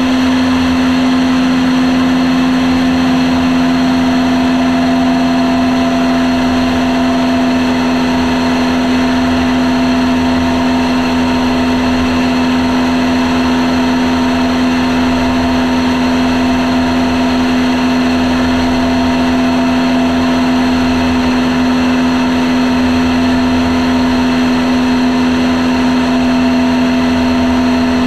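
Light propeller aircraft's engine and propeller in flight, a loud, steady drone with a strong hum that holds the same pitch throughout.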